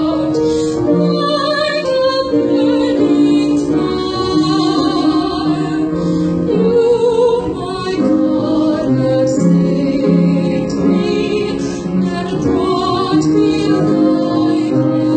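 A woman singing a slow art song with vibrato, accompanied by instruments, performed live.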